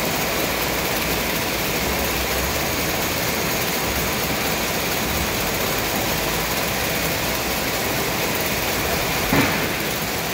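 Bobst folder-gluer running steadily, its belts carrying printed carton blanks through the folding section. There is a single sharp clack about nine seconds in.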